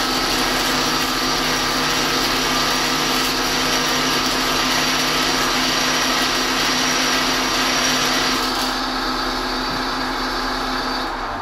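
Bench grinder running while a Veritas dresser is worked across its coarse wheel to flatten a groove: a steady motor hum under a harsh grinding hiss. The grinding hiss stops about eight seconds in while the motor keeps running, and the grinder is switched off near the end and begins to spin down.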